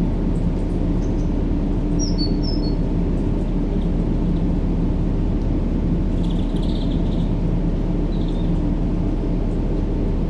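Steady, low-pitched white-noise track for baby sleep, a dense even hiss and rumble with a faint steady hum in it. A few faint high bird chirps come through about two seconds in and again about six to eight seconds in.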